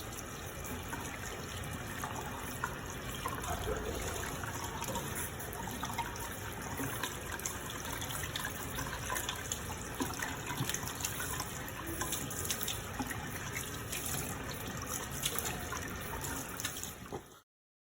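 Tap water running into a sink while hands are washed, a steady splashing that cuts off suddenly near the end.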